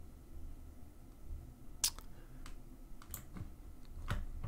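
A handful of scattered sharp clicks from a computer mouse and keyboard, about five in the second half, over a faint low hum.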